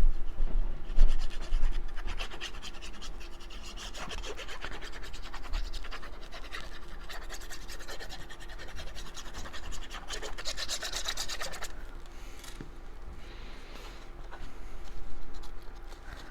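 Cardstock pieces being handled, rubbed and pressed while gluing, with a fast scratchy rasp from about two to twelve seconds in.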